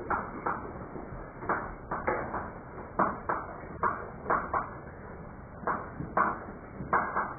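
Chalk writing on a blackboard: a string of short, irregular taps and scratches, about two a second, as each stroke is made.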